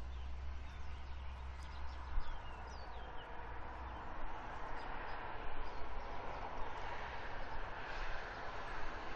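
Steady outdoor background noise with a low hum that stops about four seconds in, and a few faint chirps from small birds in the first few seconds.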